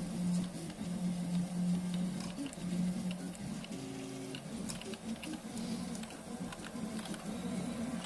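Stepper motors of a RepRap Prusa I2 3D printer humming as they drive the print head through a print. The hum stops, starts and changes pitch with each move, with faint ticks over it.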